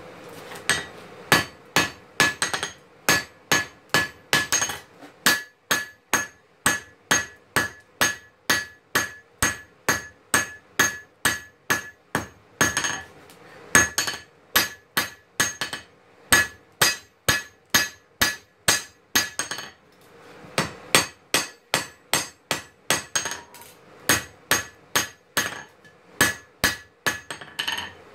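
Hand hammer striking a red-hot knife blank on a steel anvil: steady forging blows at about two a second, each with a bright metallic ring, with two short pauses partway through.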